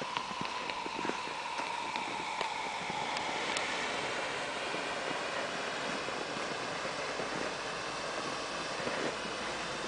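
Handheld smoke flare burning with a steady hiss, a few small crackles and a faint whistle that sinks slightly in pitch over the first few seconds.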